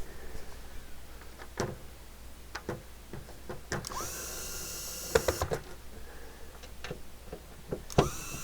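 Small cordless power screwdriver spinning up in a short whining burst about four seconds in and again near the end, backing out the screws of a CB radio's case, with clicks and knocks of handling around it.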